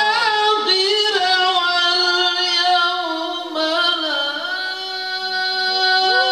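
A male qari reciting the Quran in a very high voice, in the melodic tilawah style. He holds long notes with quick ornamental turns between them, and one long steady note fills most of the second half.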